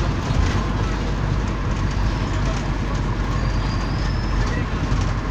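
Steady rumble of a moving vehicle's engine and road noise.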